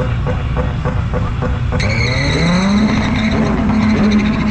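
A car engine running, then revving up about two seconds in and holding a steady high pitch while its tires squeal.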